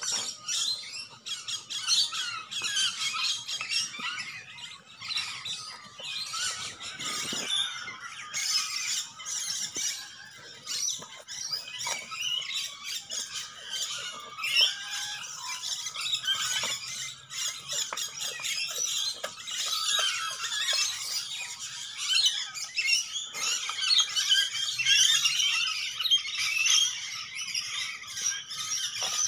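Staffordshire bull terrier gnawing and chewing a raw meaty bone, a continuous run of wet, crackling chewing and tearing noises.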